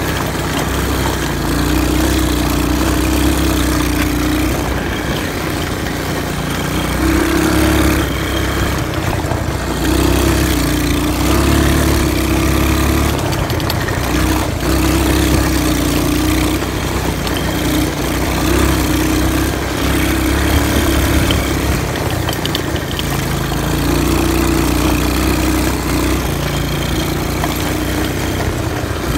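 Four-wheeler (ATV) engine running while it is ridden across grass, its note rising and falling with the throttle.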